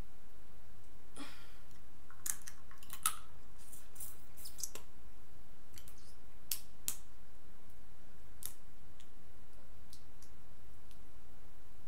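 Scattered sharp clicks and crackles of shellfish shell being peeled apart by hand, a cluster of them about two to three seconds in and a few more through the middle, over a steady low hum.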